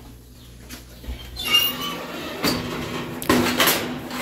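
Oven door opening and a metal baking pan going in: a ringing metallic scrape about a second and a half in, then clanks of metal on metal, the loudest a little past three seconds in.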